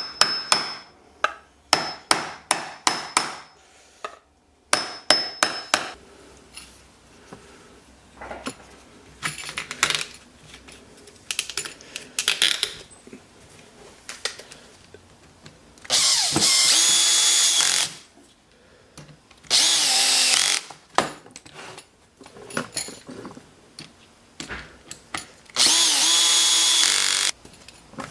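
A power drill runs three times, each time for a second or two, boring holes in wood for bolts and T-nuts. Before the drilling come quick series of sharp knocks and taps.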